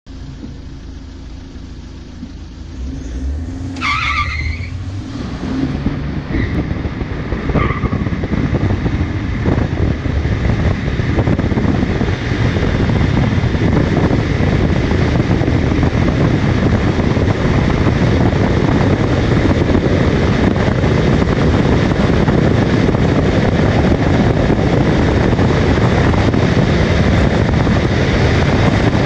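SUV accelerating hard from a standstill: engine, tyre and wind noise build up over the first ten seconds or so, then hold steady at speed. A brief sharp, higher-pitched sound stands out about four seconds in.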